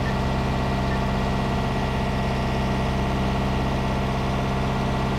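A sailboat's inboard diesel engine running steadily under way, heard from inside the cabin below deck as an even, low hum.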